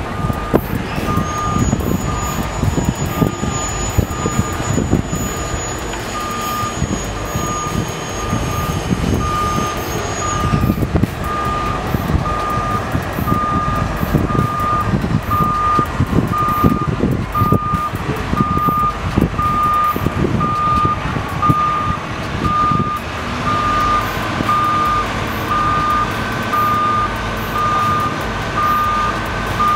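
A vehicle's reversing alarm beeping at an even pace, one steady pitch, repeating throughout over a rumble of outdoor noise and wind.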